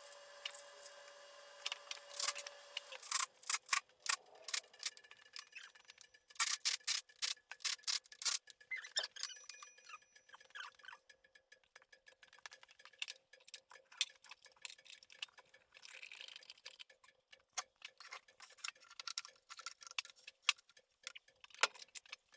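Rapid, irregular clicking and tapping of hand tools on metal transmission parts, sped up, with a few faint steady tones underneath.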